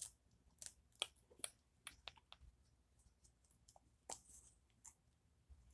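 Faint, irregular clicks and taps of fingers and hard plastic doll limbs as a Barbie doll is handled and undressed close to the microphone.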